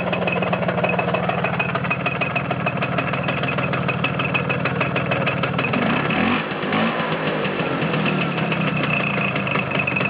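Vespa T5's two-stroke single-cylinder engine idling with the clutch engaged, carrying a fine rapid mechanical rattle: the noise that goes away when the clutch is pulled in. Its note wavers briefly about six seconds in.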